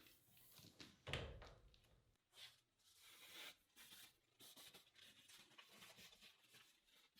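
Near silence with faint handling sounds: a soft knock about a second in, then light scraping and rustling.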